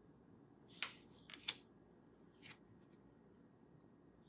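Near silence with a few faint, short ticks and rustles of tarot cards being handled and swapped: one about a second in, two close together around a second and a half, and one more near the middle.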